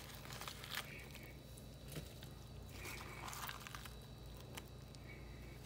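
Faint soft squishing and rustling of wet sliced yellow onions being scooped by rubber-gloved hands from a plastic container into a small saucepan, with a few light clicks.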